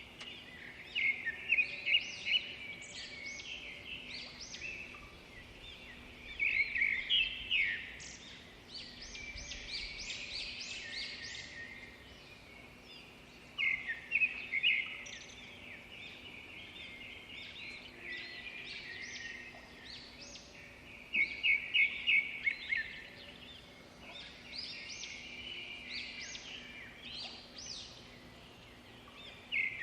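Birds chirping and singing in bursts of quick high notes every few seconds, over a faint steady hum.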